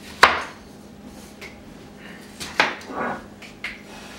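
A few separate sharp knocks and clatters of kitchen things being handled on cabinet and counter. There is one loud knock about a quarter second in, then a cluster of smaller knocks about two and a half to three and a half seconds in.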